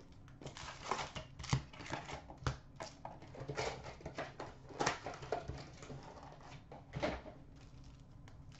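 Hockey card boxes and foil packs being handled on a glass counter: scattered taps, clicks and brief rustles.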